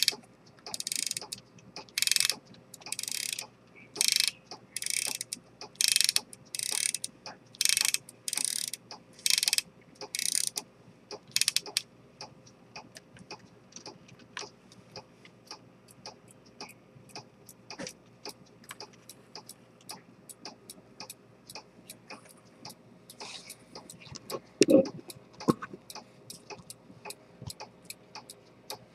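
Pocket chronometer with an Earnshaw detent escapement being wound at the crown: about a dozen clicking ratchet strokes, roughly one a second, for the first twelve seconds. After that the movement ticks quickly and evenly, with a single louder knock of handling about twenty-five seconds in.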